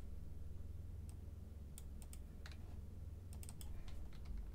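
Faint, scattered clicks of a computer keyboard and mouse in use, in small clusters a second or so apart, over a steady low hum.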